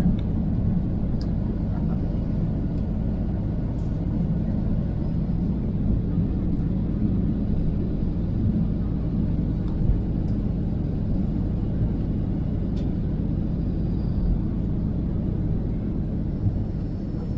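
Steady low rumble of an airliner cabin in flight, engine and airflow noise heard from inside the aircraft.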